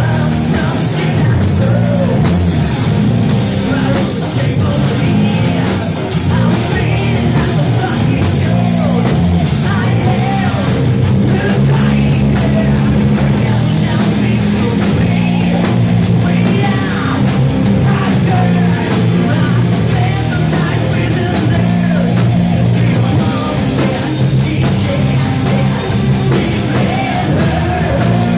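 A rock band playing live, loud and continuous, with singing over the instruments.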